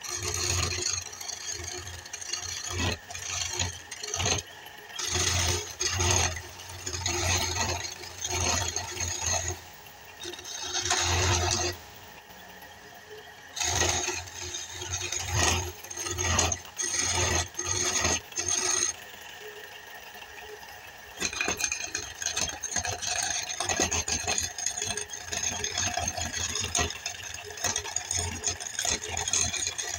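A hand-held turning chisel cuts a long wooden spindle spinning on a belt-driven wood lathe, giving a harsh rattling scrape. The cuts come as short passes of about a second with brief pauses, then run steadily for the last several seconds. Between cuts the lathe keeps running, with a faint steady whirr.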